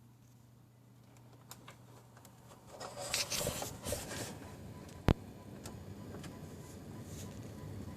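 Electronic noise from a PC that sounds like a digital signal: irregular faint clicks, a louder crackling burst around three seconds in, and one sharp click about five seconds in, over a low steady hum.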